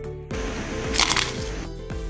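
Background music, with light crackling clatter about a second in as dried red chillies drop into a steel mixer jar.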